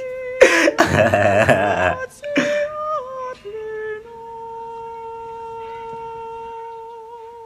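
A person's voice holding a long, steady drawn-out note that wavers near the end. About half a second in, it is preceded by a loud, wobbling vocal wail lasting over a second.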